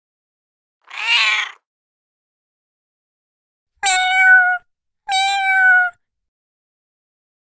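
A domestic cat meowing three times: one short meow about a second in, then two longer, steady-pitched meows close together near the middle, each falling slightly at the end.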